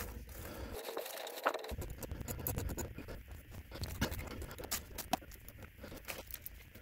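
A small wrench working the U-joint strap bolts on a driveshaft's rear pinion yoke: a run of faint, irregular metallic clicks and scrapes, more of them in the second half.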